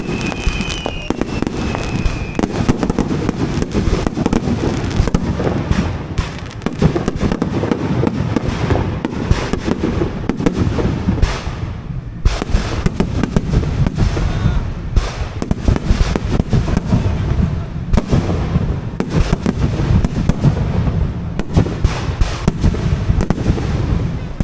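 Fireworks display: a dense, continuous barrage of bangs and crackles as shells burst in quick succession, with a brief high whistle near the start.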